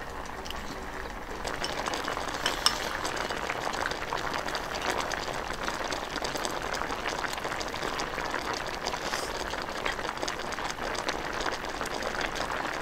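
A pot of stew bubbling at a steady simmer: a continuous crackling bubble with many small pops, growing a little louder about a second and a half in.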